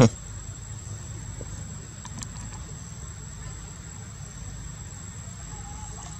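Steady high insect drone over a low steady rumble, with one sharp loud click at the very start and a few faint ticks about two seconds in.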